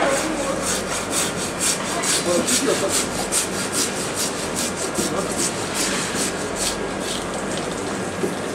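Long-bladed tuna knife sawing back and forth through a large tuna, in quick, even rasping strokes about four a second that stop near the end.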